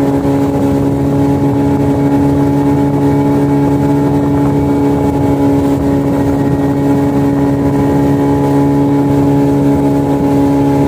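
Outboard motor running at a steady, unchanging speed, a constant engine hum, as the small boat trolls a lure, with the hiss of water and wake beneath it.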